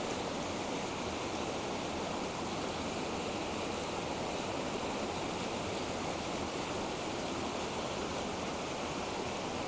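Steady rush of a waterfall and river water pouring over rocks.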